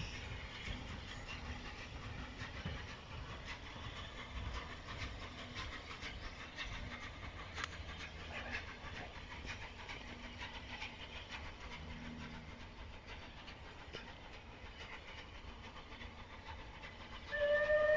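Faint low rumble of a departing train fading down the line. Near the end a steam locomotive's whistle sounds, one steady high note and the loudest thing here.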